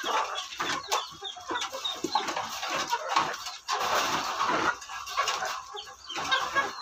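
Hens clucking as they eat together from a feed bowl, with many quick taps of beaks pecking at the food.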